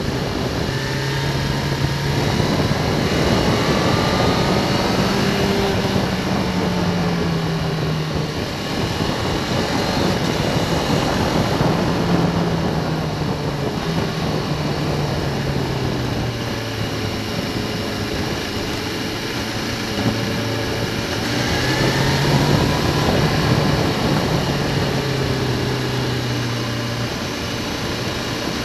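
Motorcycle engine running at road speed, its pitch rising and falling with throttle and gear changes, over heavy wind rush on the microphone.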